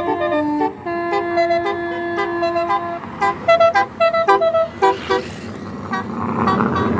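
Bus 'telolet' multi-tone horn playing a melody of held notes that step up and down, then a run of short staccato blasts about three seconds in. A rush of noise rises near the end.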